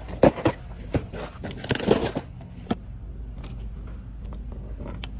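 Cardboard snack boxes knocked and shuffled into a shopping cart full of other boxes: a run of sharp clunks and rustles over the first three seconds. After that comes a steady low hum with a few faint clicks.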